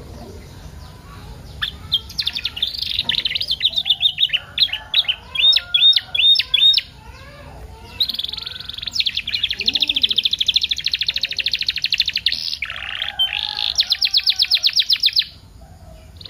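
Canary singing a long, varied song: scattered notes, then a run of separate rising chirps about two a second, then two long, very fast trills. The song stops just before the end.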